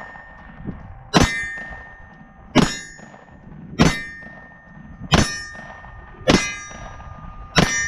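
Six pistol shots from a Glock, fired at a slow steady pace about one every second and a quarter. Each shot is followed by the clang and ring of a hit steel target.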